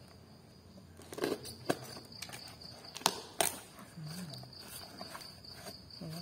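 Taped cardboard parcel being pulled and torn open by hand: scattered sharp crackles and taps of packing tape and cardboard, loudest about three seconds in. A steady high-pitched whine sits in the background through the last couple of seconds.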